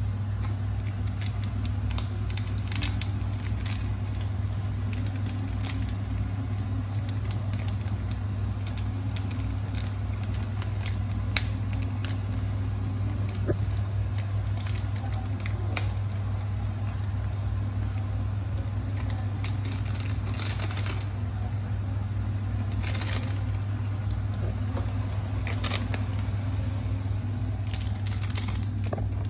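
Induction cooktop humming steadily under a pan of instant ramen, with scattered light clicks and crinkles from a seasoning sachet being torn and shaken and a fork against the pan.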